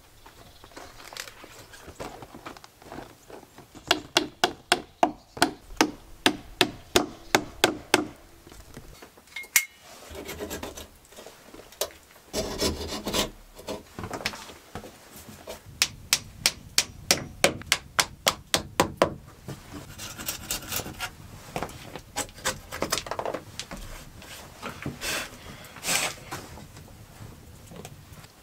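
A hammer drives small nails into a wooden window frame in two quick runs of sharp strikes, about three or four a second, with rubbing and scraping against the wood in between.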